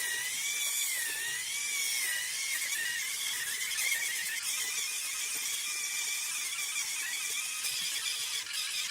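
Battery-powered Vega Silky Soft electric callus remover running, its rough roller spinning against the skin of a foot and sanding off dead skin. A high motor whine that wavers in pitch for the first couple of seconds, then steadies.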